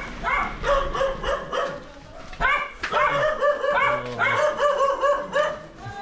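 A dog barking in a fast run of short yaps, several a second, with a brief pause about two seconds in.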